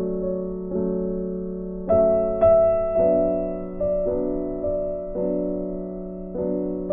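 Background music: slow piano chords, each struck and left to fade, with a higher note ringing out about two seconds in.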